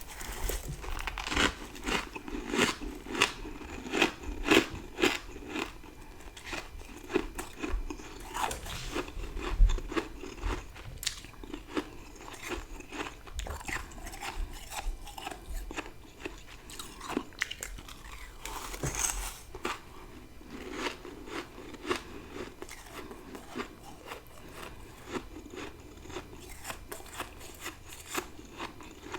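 Crunchy freezer frost being bitten and chewed in big mouthfuls: a quick run of crisp crackling crunches. The loudest crunches fall in the first ten seconds or so.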